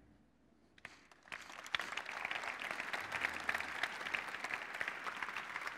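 Audience applauding, the clapping starting about a second and a half in and keeping up steadily.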